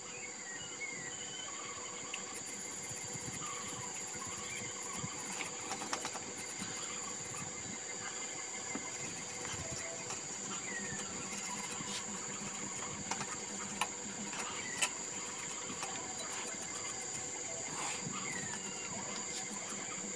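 Quiet bench work: a few light clicks and taps as a small brush scrubs a CRT picture-tube socket clean. Behind it run a steady high-pitched whine, faint cricket-like chirping and small squeaks.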